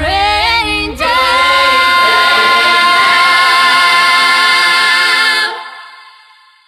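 Background pop song: a singer glides through a short phrase, then holds one long note, and the song fades out near the end.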